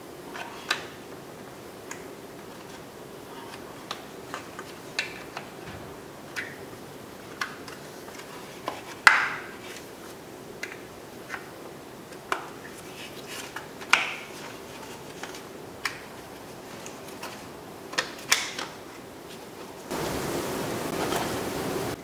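Scattered plastic clicks and snaps as the tabs of a Honda Civic door armrest and switch panel are pried apart by hand. The loudest snaps come about nine and fourteen seconds in. In the last two seconds a steady hiss comes up.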